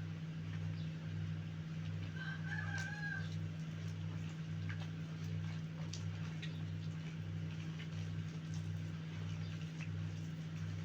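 A chicken gives one short, pitched call about two seconds in, over a steady low mechanical hum that throbs about one and a half times a second, with a few faint clicks.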